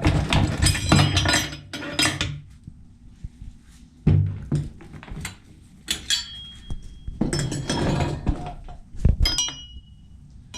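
Steel Honda B16 transmission parts clinking and clanking as they are handled and set down, in several clusters of clatter and knocks. A struck part rings briefly about six seconds in and again near the end.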